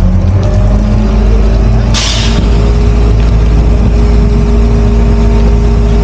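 Heavy diesel engine running steadily, with a short hiss of released air about two seconds in.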